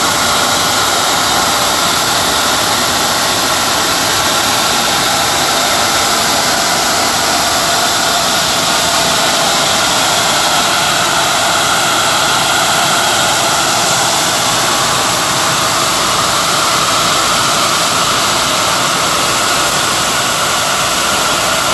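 Automatic rice polishing machine running steadily as it whitens and polishes rice, a loud, even rushing noise that does not change.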